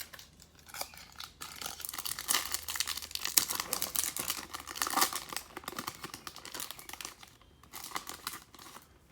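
A foil trading-card pack wrapper being torn open and crinkled by hand, a dense crackling that runs for several seconds and returns briefly near the end.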